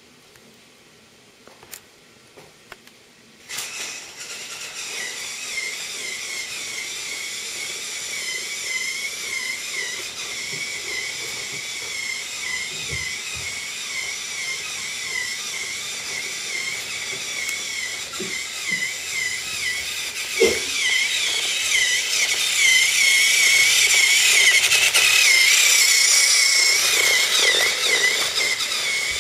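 A small motor's high-pitched whine, wavering in pitch, starts suddenly about three and a half seconds in after a few light clicks and gets louder over the last several seconds.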